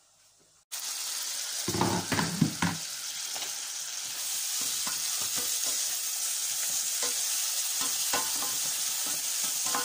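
Onions sizzling as they fry in oil in a stainless steel pot, just starting to brown, with a spatula stirring and scraping against the pot. The steady sizzle starts abruptly under a second in, with a few louder knocks and clatters about two seconds in and light clicks of the spatula after.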